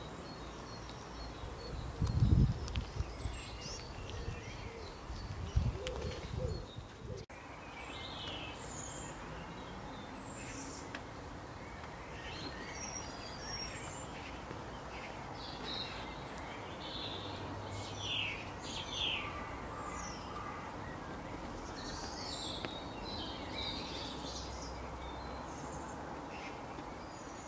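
Birds chirping in short, scattered calls over a steady outdoor hiss. In the first few seconds a few low thumps and rustles sound close to the microphone.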